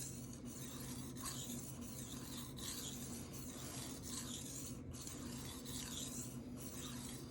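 A knife blade being stroked back and forth on a wet Shapton Rockstar 1000-grit whetstone: a repeated scraping hiss, swelling with each stroke about once a second.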